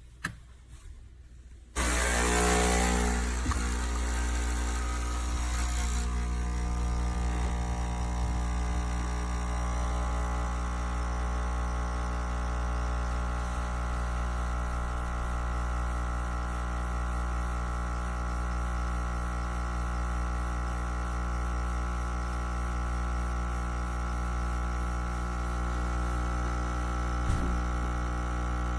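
Nespresso Creatista Plus coffee machine starting up with a click and then running steadily with a low droning pump hum. There is a hiss for the first few seconds after it starts.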